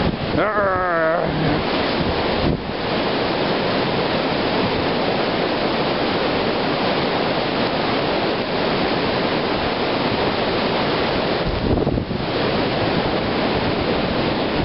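Blizzard wind blasting across the microphone, a loud, steady rushing roar with small dips in strength.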